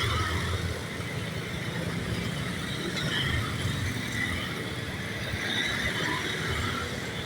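Road traffic: a vehicle engine running with a steady low rumble, with faint high sounds scattered above it.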